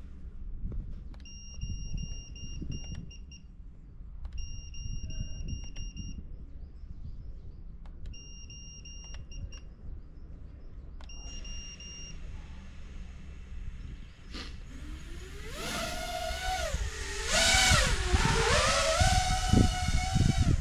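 Several quick runs of short, high electronic beeps. Then, about two-thirds through, an FPV drone's motors and propellers spool up into a loud whine that rises and falls with the throttle as the drone takes off and flies.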